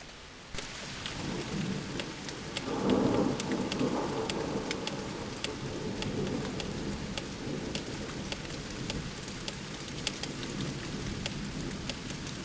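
Thunderstorm: steady rain with single drops ticking close by, under a rumble of thunder that swells loudest about three seconds in and rolls on.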